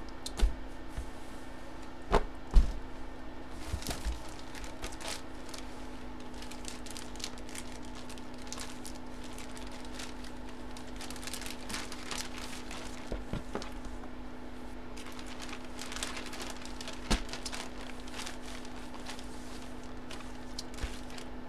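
Rustling and crinkling as a folded sports jersey is handled and unfolded on a table, with a few knocks, the loudest about two and a half seconds in. A steady hum runs underneath.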